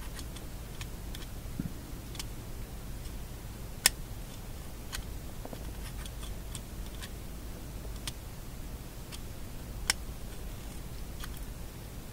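Scattered light clicks and taps, with two sharper clicks about 4 s and 10 s in, over a steady low hum: a magnet being stroked against the shadow tuning meter's internal magnet to re-magnetize it.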